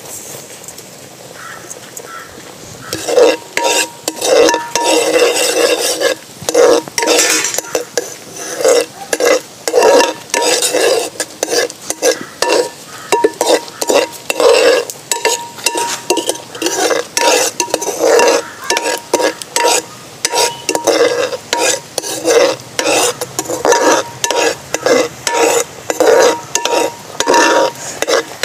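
A spoon stirring tomato sauce cooking in a pan on the stove, scraping round the pan in quick strokes about twice a second that start about three seconds in, over a faint sizzle from the hot sauce.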